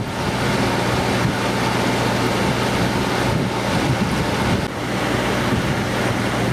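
Tour boat's engine running steadily as the boat cruises along the river, with a low hum under wind noise on the microphone and water rushing past.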